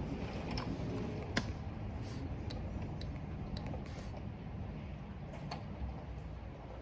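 Steady low wind rumble from the storm, with a handful of separate keyboard key clicks scattered through it.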